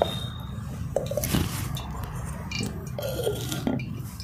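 A few light knocks and handling noises: a wooden rolling pin set down on a wooden rolling board, then hands taking soft dough from a steel bowl, over a steady low hum.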